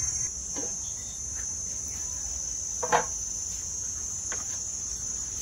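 Steady high-pitched insect drone, with one sharp knock about three seconds in.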